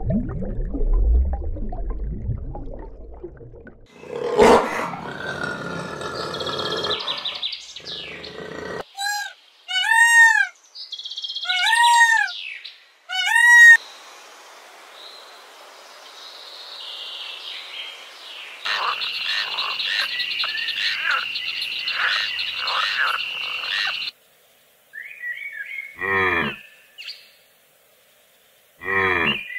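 Varied animal calls one after another: about six quick rising-and-falling chirps, then a steady, high, pulsing trill for about five seconds, then two short calls near the end.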